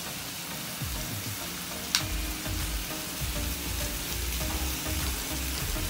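Chicken pieces sizzling in hot oil in a metal kadai as chili paste is spooned onto them, a steady frying hiss with a single sharp tap about two seconds in.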